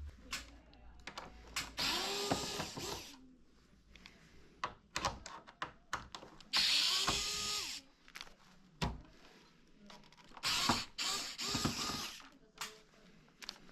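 Cordless electric screwdriver driving screws in three separate runs of a second or two each, its motor whine rising then holding, with plastic clicks and knocks of parts being handled between runs.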